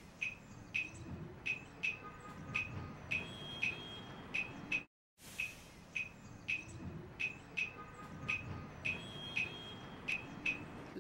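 A short looped ambience clip of high, short chirps, a few a second, over a low rumble; it cuts out briefly about five seconds in and the same stretch starts over.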